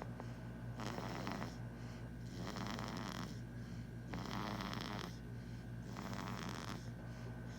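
Snoring: a noisy snore about every one and a half to two seconds, four in all, over a steady low hum.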